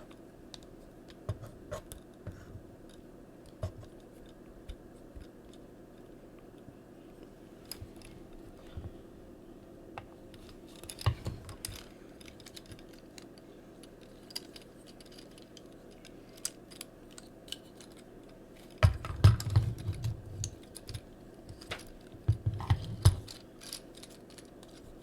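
Plastic clicks and small rattles from a Transformers action figure's parts being handled and snapped into place during transformation. There are two clusters of louder low bumps about three-quarters of the way through.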